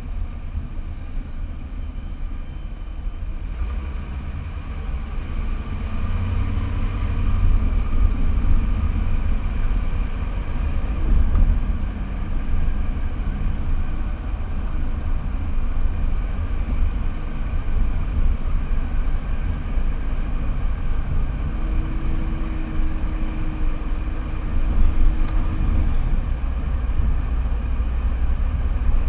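Car driving at low speed: a steady low rumble of engine and road noise that grows louder about six seconds in.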